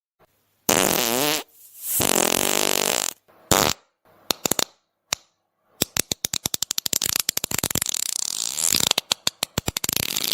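A string of fart sound effects: two pitched farts with a wavering tone in the first few seconds, a few short pops, then a long, rapid sputtering fart from about halfway on.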